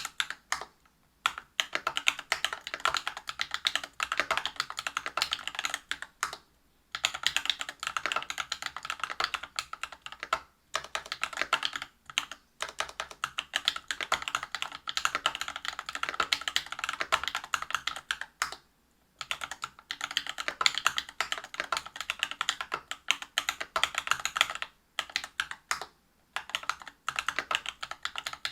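Fast typing on a Whale 75 mechanical keyboard with lubed Cobalt POM linear switches (63.5 g) on a brass plate and PBT keycaps. It is a dense run of keystroke clacks, broken by short pauses every few seconds.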